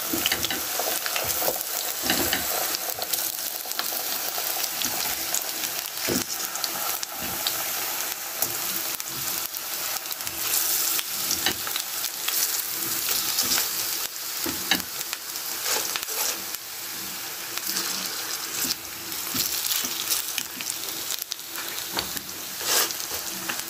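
Raw potato slices sizzling and crackling in hot oil in a non-stick frying pan, with a few short knocks as more slices are laid into the pan.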